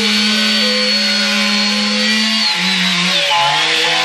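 Chainsaw engine held at high revs in a steady drone. About two and a half seconds in, its pitch drops in two steps as the throttle eases off, with fainter musical tones underneath.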